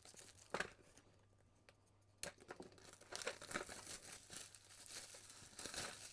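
Clear plastic parts bag crinkling as it is handled. A single sharp click comes about half a second in, then a short quiet gap, and the crinkling runs on continuously from about two seconds in.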